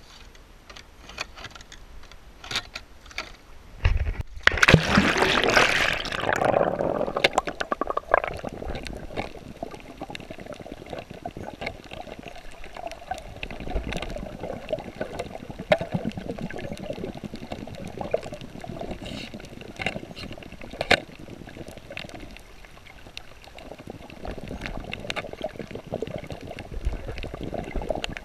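Water splashing and gurgling: a loud rush of water about four seconds in that dies away over a few seconds, then steady sloshing with small drips and ticks.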